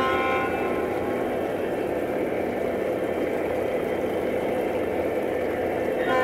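Onboard sound systems of O scale model diesel locomotives running: a steady diesel engine rumble, with a horn blast fading out at the start and another starting right at the end.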